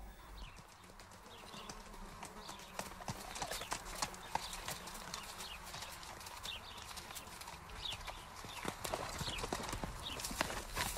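Horses' hooves clip-clopping: many irregular hoofbeats from horses walking and being ridden.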